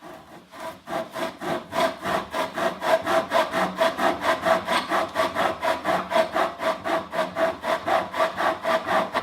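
Hand-pulled pocket chainsaw, a flexible saw chain worked back and forth by hand, cutting through wood in quick even strokes, several a second. It starts softly and builds to a steady, loud rasping over the first few seconds.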